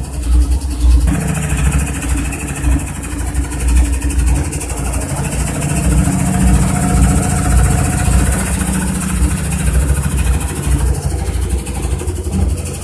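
CEP top-loading washing machine on its spin cycle, running with a loud, steady low rumble that throbs rapidly: the loose basket vibrating and rattling on its mount. This is heavy spin vibration that could come from wear in the spider or a loose nut.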